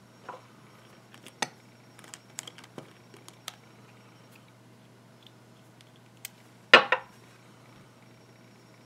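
Small handling noises from an e-liquid bottle and its glass dropper: a few light clicks and taps over the first few seconds, then a louder short clatter about seven seconds in.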